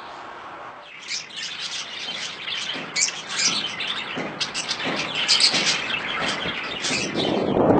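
Birds chirping, a dense run of short high calls overlapping one another, starting about a second in.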